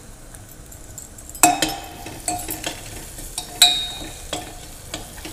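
A steel spatula is stirring onions, turmeric and ginger-garlic paste as they fry in the metal base of a pressure cooker. It scrapes and clinks against the pot with a ringing sound, over a soft sizzle. The loudest clinks come about a second and a half in and again past the middle.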